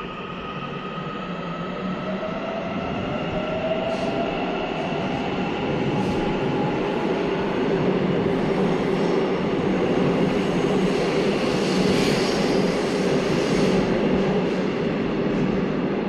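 Seoul Subway Line 7 electric train pulling out of the station and speeding up. The rolling noise of its wheels on the rails grows louder, and the electric motor's whine glides in pitch as it gathers speed.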